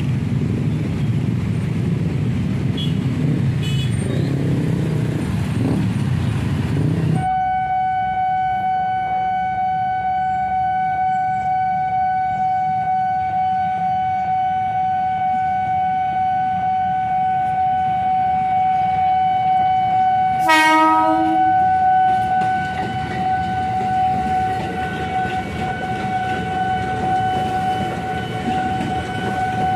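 A steady electronic warning tone from a railway level-crossing alarm begins abruptly after a few seconds of low traffic rumble and holds to the end. About two-thirds of the way in, a KRL electric commuter train gives one short horn blast, the loudest sound here, as it comes up to the crossing.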